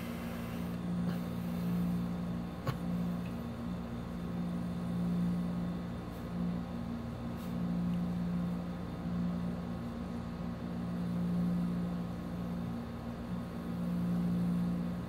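Steady machine hum: a low drone that swells and fades every couple of seconds, with a single click under three seconds in.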